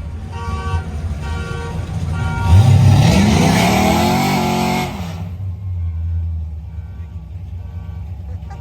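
A car engine revving up as it accelerates along the street, rising in pitch and loud for about two and a half seconds from a little after two seconds in, then dropping away suddenly. Steady traffic rumble runs under it.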